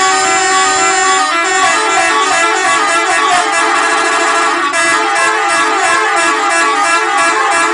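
Bus telolet horn, a set of musical air horns, holding a chord for about a second, then playing a quick tune of changing notes without a break.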